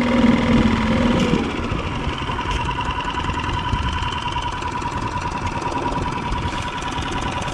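Small Mercury 3.5 hp outboard motor running slowly as the boat is eased onto its spot. The engine's note changes about a second and a half in, settling into a steady even hum with a higher whine.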